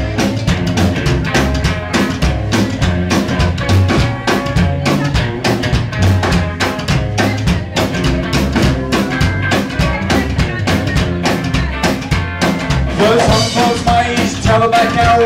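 Live band playing a fast song: drum kit keeping a steady driving beat under upright bass and electric guitar.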